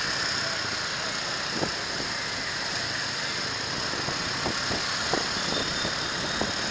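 Motor scooter running at low speed through town traffic: a steady engine hum with road noise, and a few light ticks.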